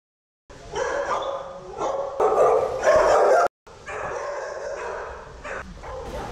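Many dogs barking together in shelter kennels, a dense din that starts about half a second in. It is loudest around three seconds, cuts out for a moment, then goes on.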